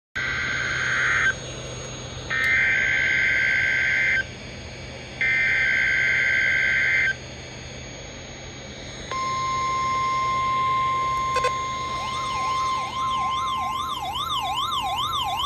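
NOAA Weather Radio test alert: three bursts of the shrill two-pitch SAME data header, then the steady 1050 Hz warning alarm tone starts about nine seconds in. Near the end a siren tone sweeping rapidly up and down joins the steady tone, over a low hum.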